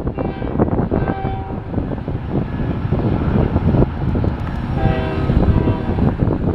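Diesel freight locomotive's horn sounding two roughly one-second blasts, about four seconds apart, over a steady rumble and heavy wind noise on the microphone.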